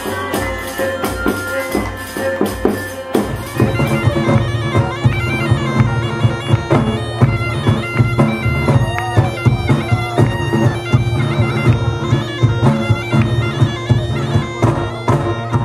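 Live traditional folk music led by a bagpipe playing a tune over its steady drone, with stick-beaten drums. About three seconds in the band fills out and the drums come in with a driving beat.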